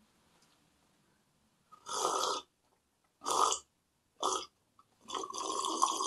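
A man bent forward slurping and gulping water from the far rim of a glass, the upside-down drinking remedy for hiccups. There are four wet mouth noises, the last and longest lasting about a second.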